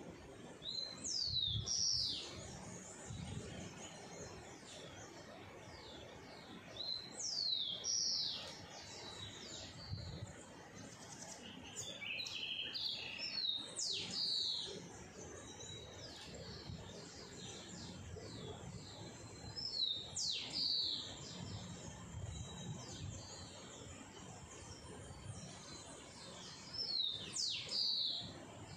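A bird singing five short phrases spaced several seconds apart, each a quick run of high sweeping notes, over a faint outdoor background.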